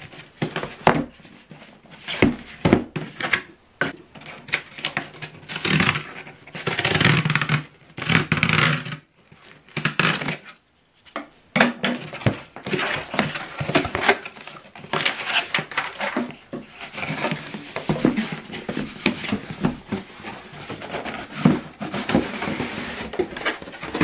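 A cardboard shipping box being opened by hand: a blade scoring along the packing tape, the tape peeling away, and the cardboard flaps scraping and rustling. It comes as a string of short scrapes and taps with a few longer tearing stretches.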